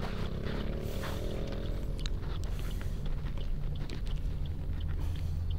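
Car engine and road noise heard inside the cabin as the car drives slowly in traffic: a steady low hum, with scattered faint light clicks.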